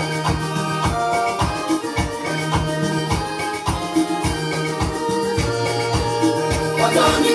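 Electronic keyboard playing an instrumental passage of gospel dance music, with held chords over a bass line and a steady beat.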